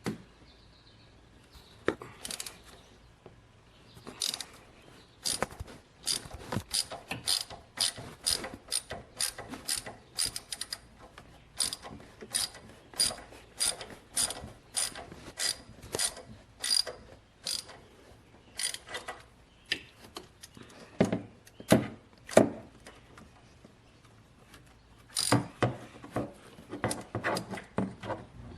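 Hand ratchet wrench clicking in runs of strokes, about two or three clicks a second with short pauses, as front-suspension bolts are backed out. Two louder knocks come about three quarters of the way through.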